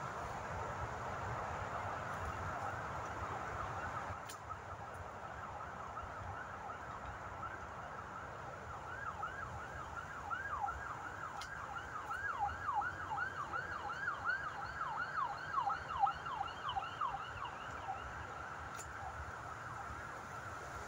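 A distant siren holds a steady tone, then for several seconds switches to a fast yelp of rising-and-falling sweeps, about two or three a second, before settling back. A few faint sharp clicks are heard, spaced several seconds apart.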